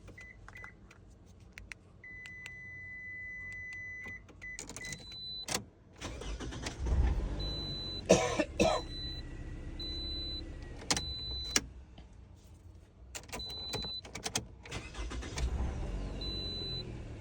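Toyota car chiming with a steady electronic tone, then its engine is started about six seconds in and keeps running, with repeated short high beeps and several clicks over it. This is the engine running on a freshly programmed spare key.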